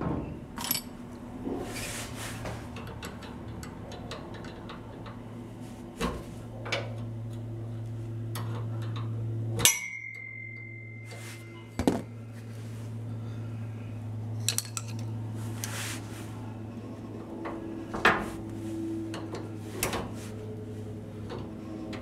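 Hand tools and steel parts clinking and knocking irregularly as the parking brake linkage under an old pickup is worked on, with a few louder knocks, over a steady low hum.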